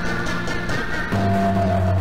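Background music; about a second in it switches to a new section with heavy low notes and a high tone stepping slowly downward.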